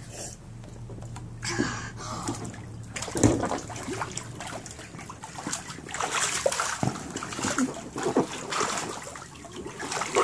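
Pool water splashing and sloshing in irregular bursts as a child swims and kicks in a small inflatable pool, with one sharper splash about three seconds in.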